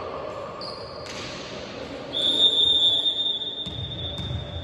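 A referee's whistle, blown once about two seconds in as a single steady high note, held for about a second and a half and echoing in the sports hall. Two dull thuds, ball or feet on the wooden floor, come near the end.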